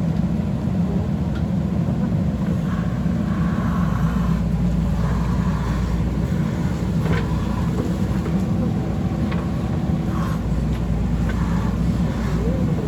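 JCB backhoe loader's diesel engine running steadily under work, with a few light knocks scattered through.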